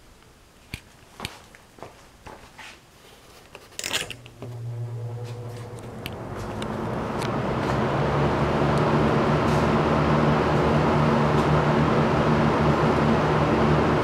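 Kmart box fan switched on with a click about four seconds in; its motor starts to hum and the blades spin up, the rush of air building over the next few seconds and then running steadily. A few light clicks and taps come before it.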